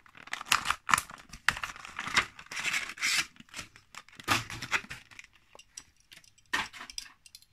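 Clear plastic blister packaging of a 1:64 diecast car being torn off its cardboard backing card and handled: irregular bursts of crackling and tearing that stop shortly before the end.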